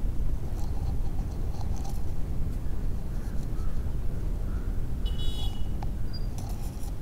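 Outdoor background: an uneven low rumble throughout, with a few short, high bird-like chirps about five and six seconds in.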